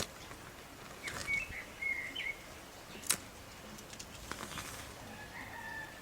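Faint outdoor background with a few short bird chirps, a cluster about a second in and another near the end, and one sharp click around three seconds in.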